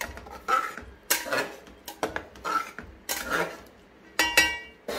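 Metal ladle scraping and knocking against a metal cooking pot while stirring a watery chicken gravy. There is a stroke about every second, and the loudest pair comes near the end.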